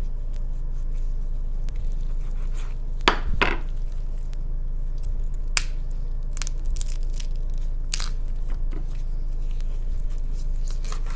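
Knife cutting up a raw whole chicken: a few short, sharp clicks and cracks of the blade working through skin, flesh and joints, scattered unevenly, over a steady low hum.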